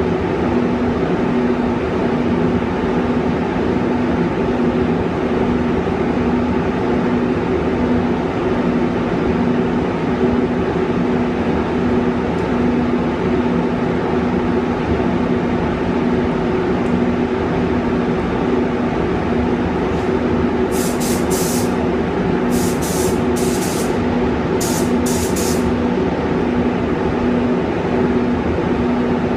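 Steady, loud drone of a spray booth's ventilation, with a constant low hum. Near the end, a gravity-feed spray gun is triggered in four short bursts of air-and-paint hiss.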